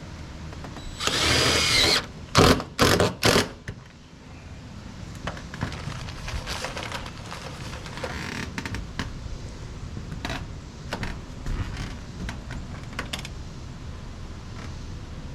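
Cordless drill driving screws, as in fastening metal roofing: one run of about a second, then three short, loud bursts in quick succession, followed by lighter clicks and knocks.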